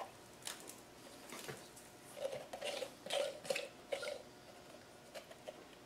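Faint plastic clicks from a heater blower motor and its squirrel-cage fan being handled. Between about two and four seconds in comes a run of about five short squeaks.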